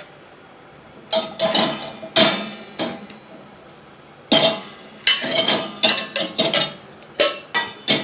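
Stainless steel plates and bowls clanking and ringing against each other and the dishwasher's wire rack as they are loaded. One burst of clatter comes about a second in, and a denser run of clinks follows from about four seconds in.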